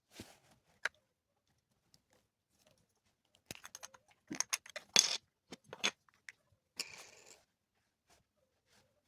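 Handling noises from unpacking a product: a scatter of sharp clicks and taps, thickest in the middle, followed by a short rustle of packaging.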